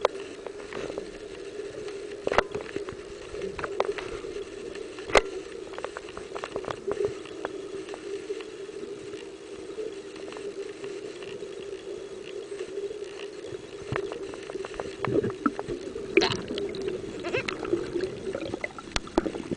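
Underwater sound picked up by a camera held under lake water: a steady low hum with scattered sharp clicks and taps, the clicks coming thicker in the last few seconds.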